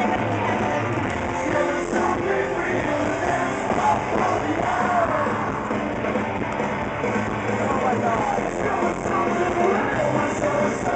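Live rock music with a singer, played loud over a festival stage's speakers and picked up from inside the crowd on a camcorder's microphone.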